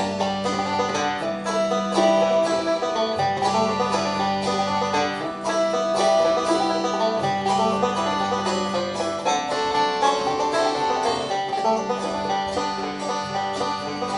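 Instrumental music led by a plucked string instrument, with a held low note underneath and bass notes that change every second or two.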